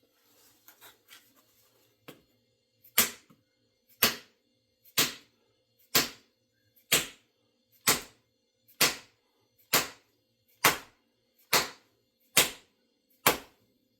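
Twelve sharp, evenly spaced knocks, about one a second, starting a few seconds in: blows struck while seating an axe head onto its new wooden handle. A few faint small clicks come before them.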